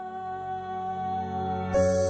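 Soft, slow new-age background music of held tones; near the end a louder, brighter layer comes in.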